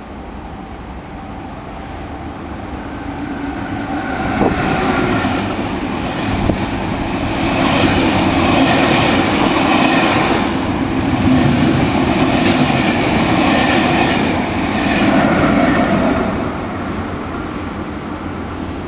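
Double-deck intercity through train passing non-stop at speed, its wheels clattering over the rail joints. The noise builds over the first few seconds, stays loud through the middle and eases off near the end as the last coaches go by.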